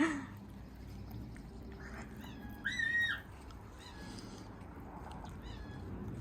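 A pet parrot making soft vocal sounds: one short, clear call between two and three seconds in, with a few fainter chirps around it.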